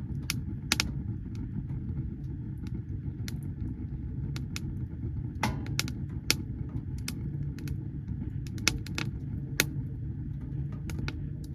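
Wood fire burning in a tent stove: a steady low rush of the fire with irregular sharp crackles and pops from the burning wood.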